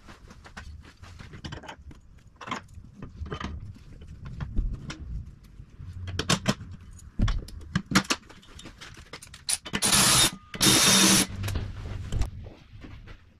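Workshop clatter of tools and metal parts being handled: a run of sharp clicks and knocks, then two loud, noisy bursts of about a second each near the end.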